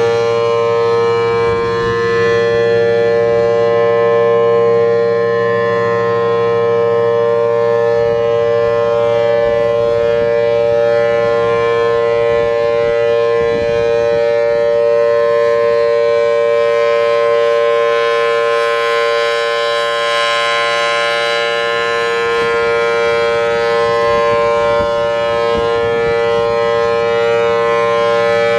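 Federal Signal Thunderbolt 1000T blower-driven warning siren with a 4/5-port chopper sounding a steady Full Alert signal: a loud, continuous dual tone, two pitches a major third apart.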